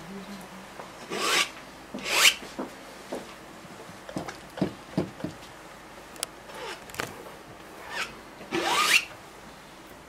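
Paintbrush strokes rasping across a stretched canvas: long loud scrubbing strokes about a second in, again a second later and near the end, with shorter, softer scrapes between.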